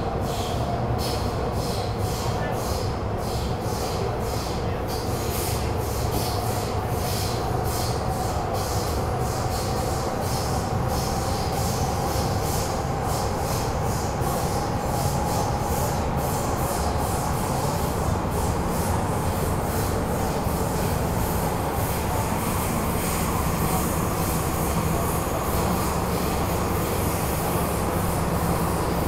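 Metro-Cammell M-Train electric multiple unit running, heard from inside the passenger car: a steady low rumble with wheel-on-rail noise. A whine rises slowly in pitch over the first half and then holds steady, and fine rapid clicking above it fades out in the later part.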